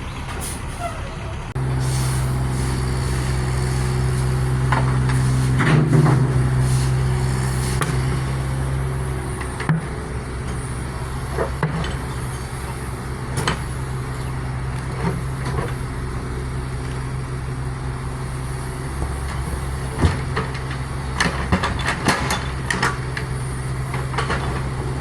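Heavy construction vehicle's engine running at a steady idle, getting louder about two seconds in, with scattered knocks and clanks over it.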